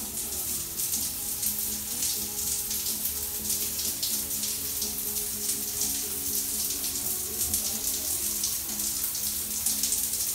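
Overhead rainfall shower running: a steady rush of water falling from the square ceiling-mounted shower head.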